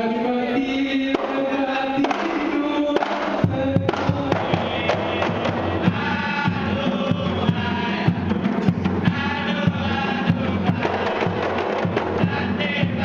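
A group of men singing together, joined about three and a half seconds in by a kompang troupe striking their hand-held Malay frame drums in a steady beat, the singing carrying on over the drumming.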